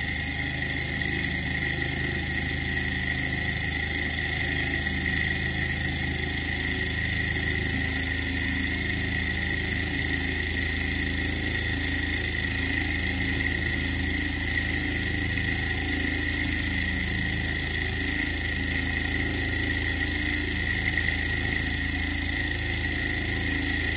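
Small hot-air Stirling engine running at a steady speed and turning a small DC motor used as a generator, with a constant high whine over a steady low hum.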